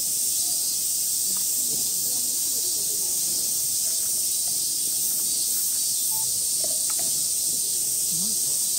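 Summer cicada chorus: a steady, loud high-pitched hiss that holds level throughout.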